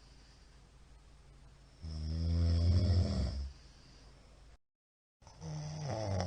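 A middle-aged man snoring loudly in his sleep: a long rasping snore about two seconds in, then after a brief dropout to dead silence a second, shorter snore near the end.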